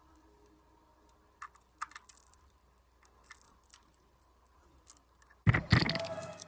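Hands working open a paper-cased aerial firework shell: small clicks and scrapes as the casing and its packing are picked at, then a loud scraping, tearing sound about five and a half seconds in that lasts about a second.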